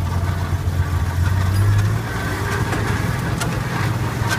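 A 1971 International Harvester Scout II's AMC 232 inline-six running at low speed. The engine note rises a little and then eases back about two seconds in, and a couple of light clicks come near the end.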